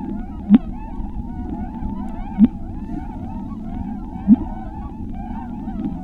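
Underwater-style ambient soundscape: many wavering, whale-like calls over a low steady bed, with a short rising thump about every two seconds, three times.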